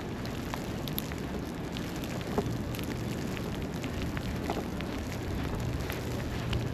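City street ambience in a snowstorm: a steady low rumble with many small scattered crackles and ticks over it, and one sharper knock about two and a half seconds in.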